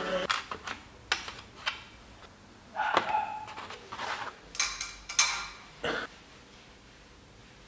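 Small steel valve parts of a vintage Vespa rear shock absorber being handled and set down on a cardboard-covered workbench: a string of light metallic clicks and clinks, the sharpest about three seconds in and a short clatter around five seconds.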